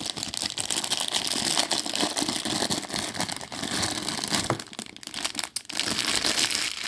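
Plastic packaging of a mystery mini bag charm crinkling and rustling as it is handled and opened, with a short lull about five seconds in.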